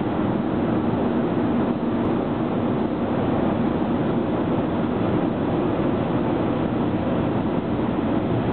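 Steady in-flight cabin noise of an Airbus A300 Zero-G parabolic-flight aircraft: engine and airflow noise with a constant low hum.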